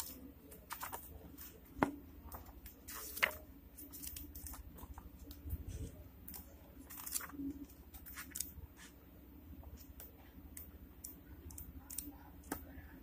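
Pages of a thick book being flipped through by hand: soft, scattered paper rustles and flicks, with a couple of sharper page flicks about two and three seconds in.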